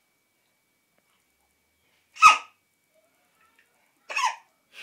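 A baby hiccuping: one sharp, loud hic about two seconds in and a softer one near the end, each a short catch of breath.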